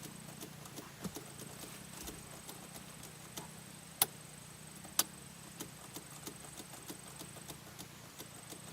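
Scattered light clicks and taps at an uneven pace, with two sharper knocks about a second apart near the middle, over a faint steady hum.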